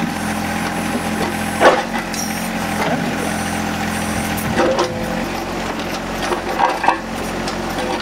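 John Deere 1025R compact tractor's three-cylinder diesel running steadily while its steel backhoe bucket scrapes and knocks against the edge of buried concrete and gravel, with a handful of sharp grating strokes as the teeth try to chip the slab.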